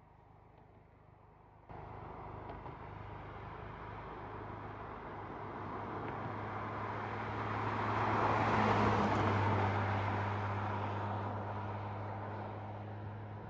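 A car driving past. Road and tyre noise rises to its loudest about two-thirds of the way through and then fades, over a steady low engine hum. The sound steps up abruptly about two seconds in.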